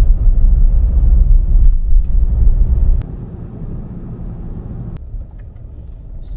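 Road and engine noise heard inside a moving car's cabin: a loud low rumble that drops abruptly about three seconds in and again about two seconds later.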